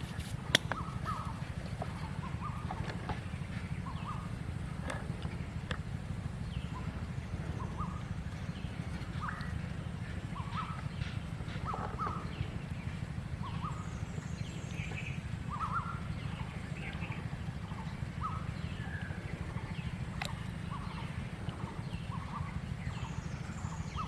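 Rural outdoor ambience: a steady low rumble under short bird chirps that come about once a second. A sharp click sounds about half a second in.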